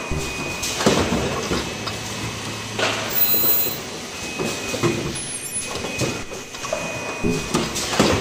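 Richpeace automatic cup-mask production line running: a steady machine hum with a thin high whine, broken by sharp mechanical clacks of the line's moving arms and fixtures at irregular intervals, the loudest about a second in, near three seconds, and just before the end.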